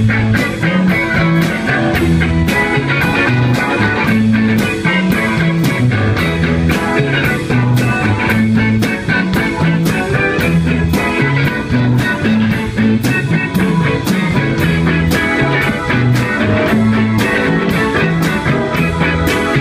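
Live band playing an instrumental passage: two electric guitars over bass guitar and a drum kit keeping a steady beat, the bass line walking up and down.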